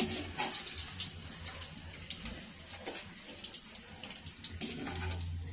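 Squid pieces deep-frying in hot oil: a steady sizzle with scattered small pops and crackles, over a low hum.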